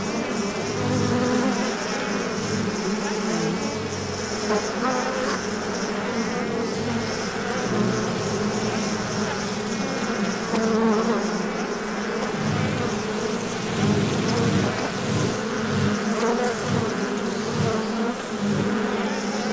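Bumblebee buzzing steadily, with a low fluttering hum that swells and fades, pulsing more often in the second half.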